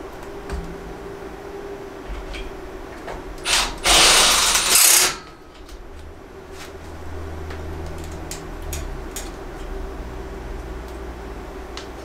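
Cordless drill driving a fastener into the steel battery rack: a short blip about three and a half seconds in, then about a second and a half of running, the loudest sound here. A steady low hum sits underneath, with a few faint clicks.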